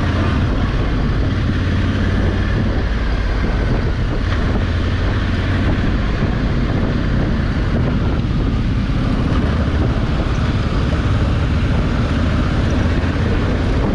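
Honda Africa Twin 1100 parallel-twin engine running steadily under way, mixed with heavy wind noise on the microphone.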